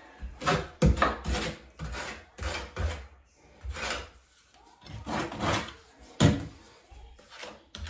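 Tiling trowel scraping and spreading thin-set mortar, in a series of uneven rough strokes with a few sharper scrapes and knocks.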